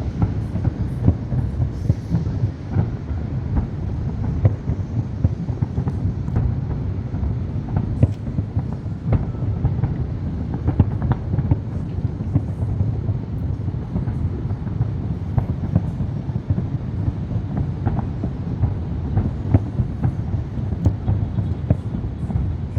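Fireworks going off: a continuous low rumble with many irregular sharp pops and bangs.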